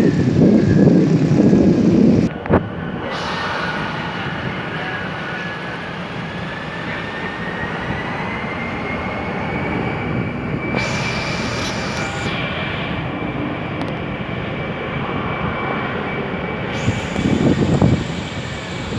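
Airliner's engines running with a steady rushing noise and a high whine that slowly rises in pitch a few seconds in, then holds level.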